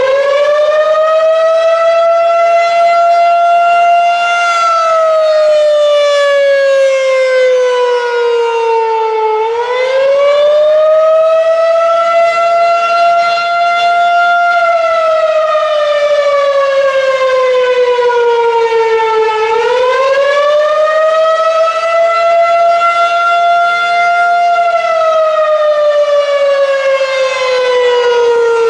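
Federal Signal 2001-SRN electromechanical outdoor warning siren sounding the attack signal: its loud tone rises quickly, holds for a few seconds, then slides slowly down, about three rounds in ten-second cycles.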